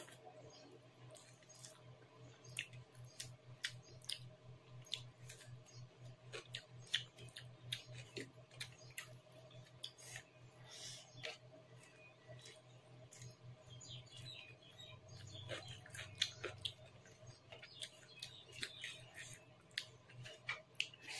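Close-miked eating by hand: irregular wet mouth clicks and smacks of chewing rice and chicken curry, with fingers squishing rice on the plate. A low steady hum runs underneath.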